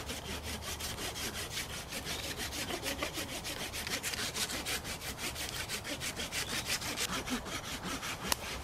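Hand pruning saw cutting through tree bark in quick, even back-and-forth strokes, scoring a ring around the trunk to girdle the tree. A single sharp click near the end.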